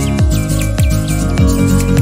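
Background music with a steady electronic beat: a deep kick about every 0.6 s under sustained bass notes.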